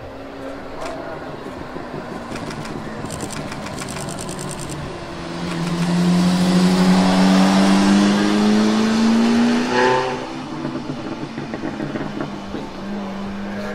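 Zenvo TSR-S's twin-supercharged V8 accelerating hard past, its pitch climbing steadily and loudest from about five to ten seconds in. The sound drops abruptly near ten seconds, then runs on more quietly as the car pulls away.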